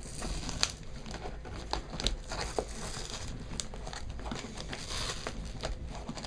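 Packaging being handled and unwrapped, crinkling and rustling, with scattered sharp crackles and clicks.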